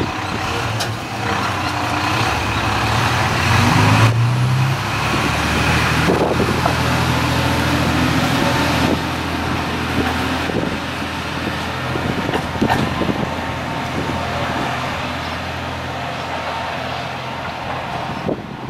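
Diesel railcar engine (Kanto Railway KiHa 2400 series) revving up as the car pulls away. Its drone rises in pitch over the first few seconds, then runs steadily and slowly fades as the car draws off.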